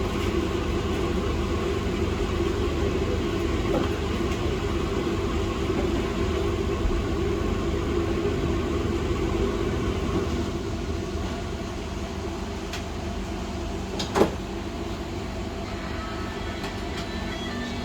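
A steady mechanical hum with a noisy rush. A single sharp click comes about fourteen seconds in.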